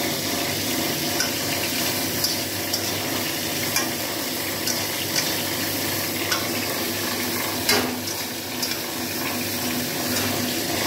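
Potato wedges sizzling in hot oil in a steel karahi while a metal spatula stirs them, scraping and clicking against the pan every second or so, with one louder knock about two-thirds of the way through. The potatoes are being sautéed for a fish curry.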